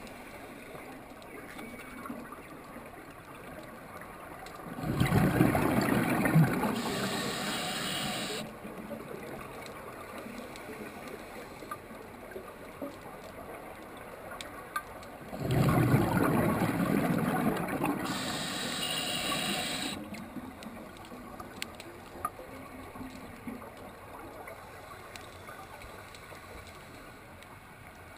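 Scuba diver breathing through a regulator underwater: two long rushing bursts of exhaled bubbles about ten seconds apart, with a low underwater hiss and faint clicks between breaths.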